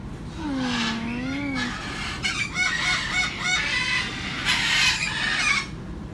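Umbrella cockatoo vocalizing: a drawn-out wavering call, then a run of rapid warbling calls and a harsh squawk about four and a half seconds in.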